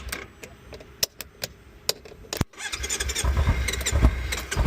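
Motorcycle started by bridging the starter solenoid posts with a screwdriver: a few sharp clicks and snaps, then from about halfway the engine runs with a low, uneven idle rumble.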